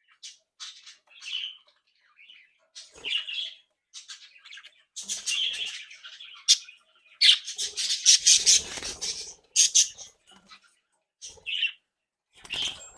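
Budgerigars chirping and squawking in irregular bursts, busiest in the middle stretch, with short quiet gaps.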